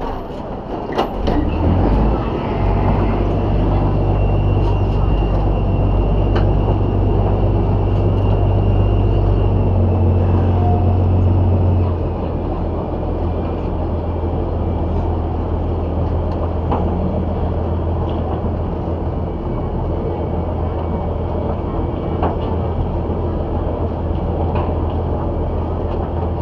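River boat's diesel engine running with a deep steady hum while the boat is held at the pier, picking up about two seconds in and easing back down about halfway through. A few sharp knocks near the start and passengers' voices over it.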